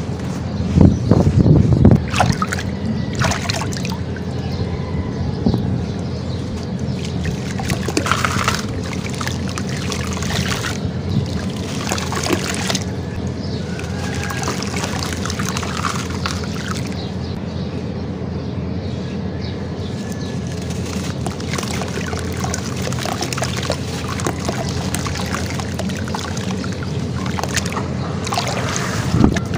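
Hands crumbling and squeezing chunks of wet sand-cement mix in water in a plastic tub: continuous sloshing, splashing and trickling. Louder splashes come about a second in and again near the end. A steady low hum runs underneath.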